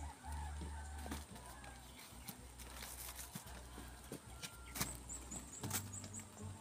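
Mangoes being picked up and set down on a bamboo slat bench: scattered light knocks and taps of fruit on wood, over a low rumble that comes and goes.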